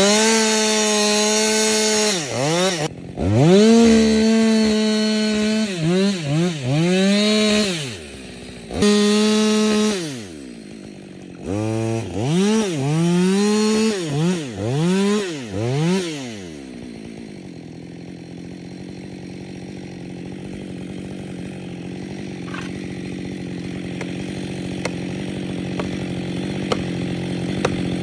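Chainsaw cutting, revved to full throttle in repeated bursts that rise and fall in pitch for about the first sixteen seconds. After that the sound drops to a lower, steadier rumble that slowly grows louder, with a few faint clicks near the end.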